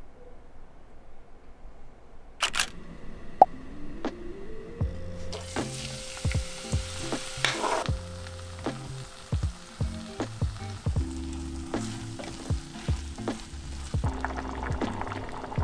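Vegetables and mushrooms sizzling in a glass pot as they are stirred with a wooden spatula, with sharp clinks and knocks of the spatula and a metal spoon, over soft background music. Both start a couple of seconds in, after a little room tone.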